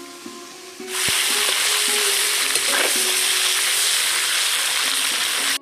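Fish pieces sizzling loudly in hot oil in a wide metal wok, being turned with a slotted spoon. The hiss starts about a second in and cuts off suddenly at the end.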